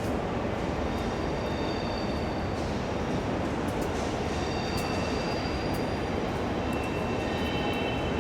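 Main railway station ambience: a steady train rumble with thin, high metallic squeals that come and go, plus a few faint clicks.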